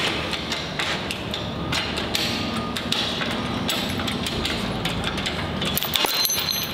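Repeated metallic knocks and clinks from an engine hoist's chain and the LS V8 hanging from it as the engine is shifted into position.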